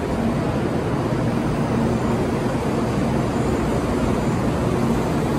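Kyushu Shinkansen train standing at the platform, giving off a steady mechanical rumble and hum.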